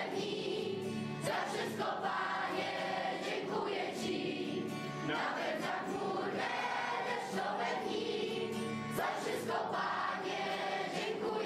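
A large group of children and teenagers singing a song together in unison, accompanied by a strummed acoustic guitar.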